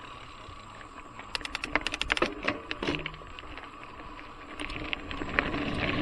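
Trek Fuel EX 7 mountain bike clicking and rattling over a dirt singletrack: a run of sharp, quick clicks between about one and three seconds in, then tyre and ride noise growing louder near the end.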